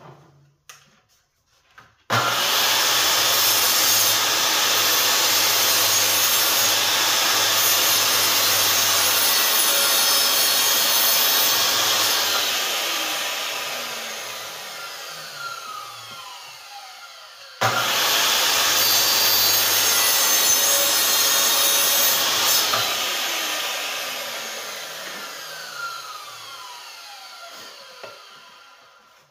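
Compound miter saw starting up and cutting mitres across wooden shelf pieces, twice. Each time it runs steadily for several seconds, then the blade spins down slowly with a falling whine. The second cut starts a little past halfway.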